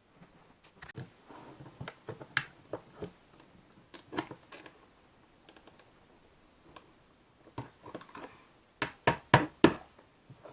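Small clicks, taps and scrapes from tape measure parts being handled and pressed together by hand while the spring-loaded hub is worked into the case, ending in a quick run of about five sharp clicks near the end.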